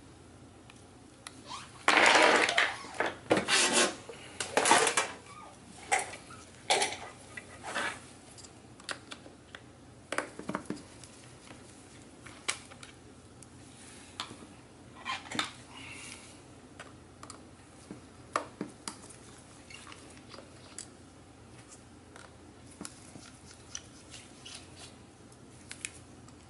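Clatter and clicks of metal tools and small parts being handled on an opened MacBook Pro's aluminium case during disassembly. A dense burst of clattering comes about two seconds in, followed by scattered light clicks and taps.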